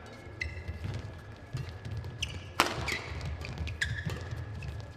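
Badminton rally: rackets striking the shuttlecock, the sharpest hit about two and a half seconds in, with short shoe squeaks on the court floor and the low thud of players' footsteps.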